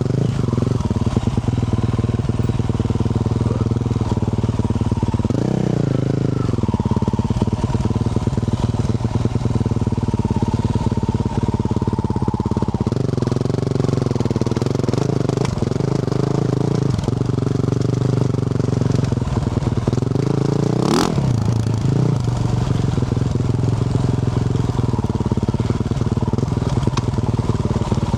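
2024 Yamaha YZ450F single-cylinder four-stroke motocross engine running through a Yoshimura RS-12 exhaust, close to the mic. Its pitch rises and falls as the throttle is worked, with one sudden sharp rev about two-thirds of the way through.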